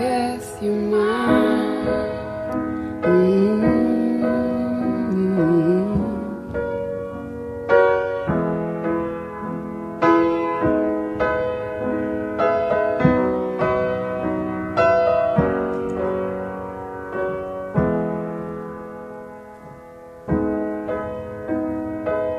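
Piano playing slow chords, each struck and left to ring, with a wordless, wavering vocal line sliding up and down over the first few seconds.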